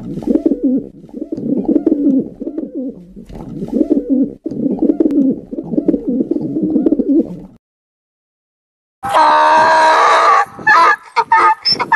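Rock pigeons cooing, a low repeated coo over and over for about seven and a half seconds. After a short silence, a donkey starts braying loudly about nine seconds in.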